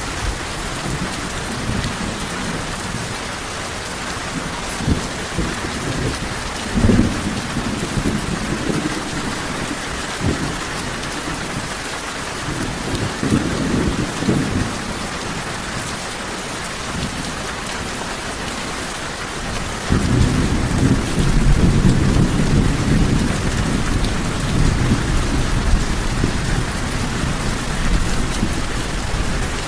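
Steady rain falling, with low rolls of thunder: short rumbles about a third and halfway through, then a longer, louder rumble in the last third.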